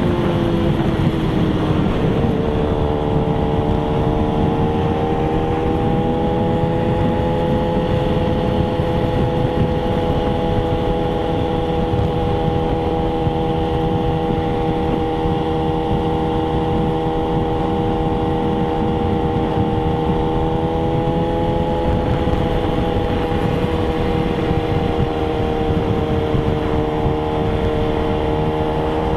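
Sport bike's engine cruising at steady revs. Its pitch drops over the first two seconds as the throttle is eased, then holds nearly level. Wind rushes over the bike-mounted microphone throughout.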